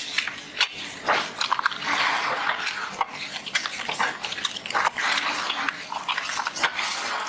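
Playing cards and cardboard card boxes handled rapidly: irregular rustling and scraping with quick clicks and taps.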